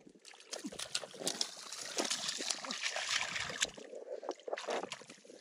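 Hands sloshing and splashing in shallow muddy water, with many quick, irregular wet slaps and squelches as they dig and grope through the mud for catfish.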